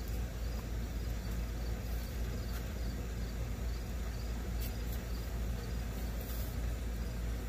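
Steady low hum and hiss of the background, with crickets chirping faintly and evenly.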